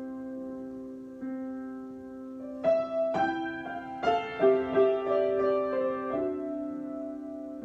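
Solo piano improvisation: a softly held chord, then about a third of the way in louder struck chords and a short flurry of notes, settling back into a sustained chord.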